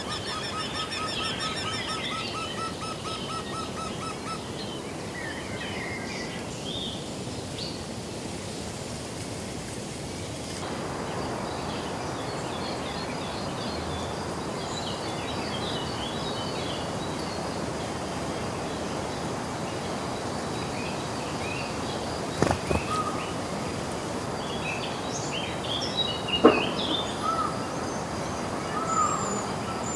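Eurasian wryneck singing: a fast run of evenly repeated notes during the first few seconds, over a steady background hiss. Scattered small bird chirps follow, and two sharp clicks come in the last third.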